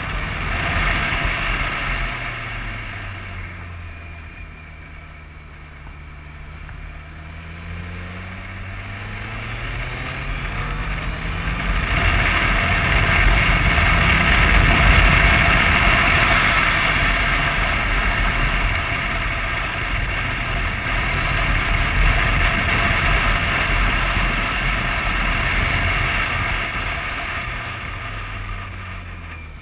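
BMW motorcycle engine dropping in pitch as the bike slows, then climbing again as it accelerates. From about twelve seconds in, loud wind rush over the camera drowns it out at speed. Near the end the engine falls away again as it slows.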